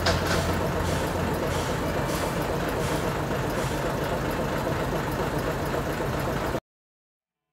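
Steam locomotive standing in steam: a steady hiss with a low hum underneath, cutting off suddenly near the end.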